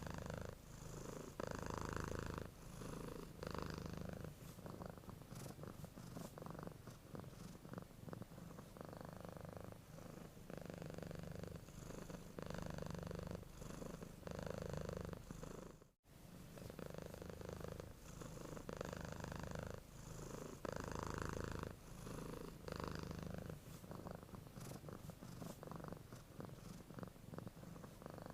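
A sleeping domestic cat purring, swelling and fading in even cycles with each breath about every second and a half. It cuts out for an instant about halfway through.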